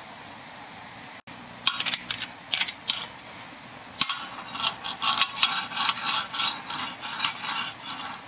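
A metal file scraped and knocked against the metal parts of a dismantled bicycle, in irregular strokes: a few sharp scrapes about two seconds in, then a busier run of scraping and clinking from about halfway.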